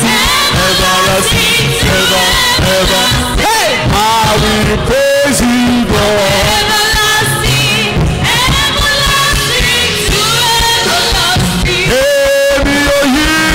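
Live church praise music: a man leading the song on a microphone with women backing singers, over keyboard and drums.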